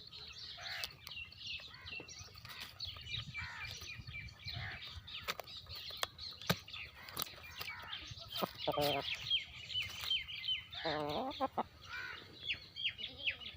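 Many small birds chirping steadily, with Aseel chickens clucking a few times, about nine and eleven seconds in, and scattered sharp taps.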